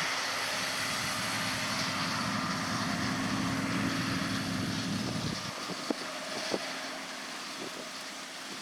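Diesel engine of large harvest machinery running steadily with a low rumble, which drops away about five seconds in. A couple of faint knocks follow.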